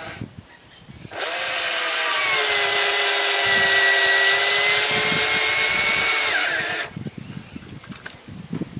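Cordless drill running steadily for about six seconds, starting about a second in, as it drives a self-tapping screw through a horseshoe into a horse's hoof; a thin high squeal rides on the motor's whine.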